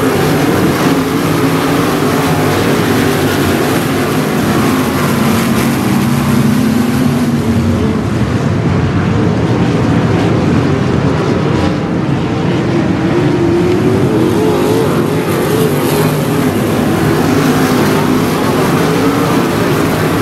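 A pack of winged 305 sprint cars racing on a dirt oval, their V8 engines running loud and continuously, the engine notes rising and falling as cars pass.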